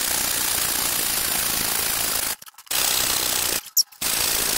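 Electric air pump running as it inflates a flocked blow-up airbed, a steady rushing whir. It cuts out briefly twice, with a short sharp click in the second gap.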